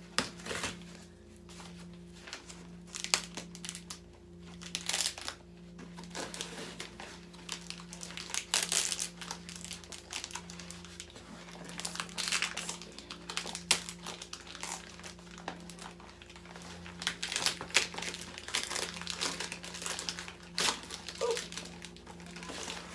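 Packaging crinkling and rustling in irregular bursts as a plant is unwrapped from its shipping box.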